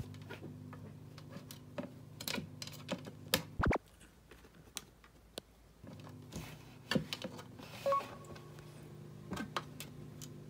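A cat's claws and teeth clicking and tapping irregularly on the plastic cover of a pet water fountain, over the steady low hum of the fountain's pump. The hum breaks off after a louder knock just under four seconds in and comes back about two seconds later.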